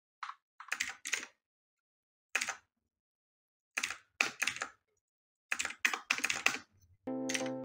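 PCYES ZOT 60% mechanical keyboard with Outemu Blue clicky switches being typed on in short bursts of keystrokes, each key giving a sharp click, with silent pauses of about a second between bursts. Music starts just before the end.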